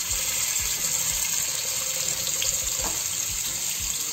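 A masala-coated rohu fish piece sizzling in hot coconut oil in a frying pan as it shallow-fries: a steady hiss.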